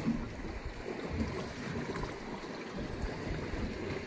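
Water sloshing and lapping, with a few light knocks.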